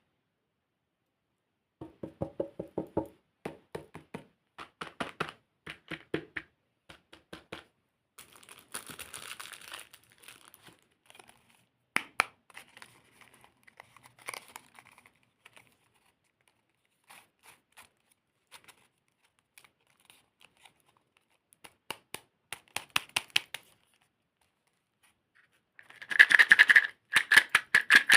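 Candy packaging being handled and opened: a run of small taps and clicks, bouts of plastic wrapper crinkling, and a louder tearing and crinkling near the end.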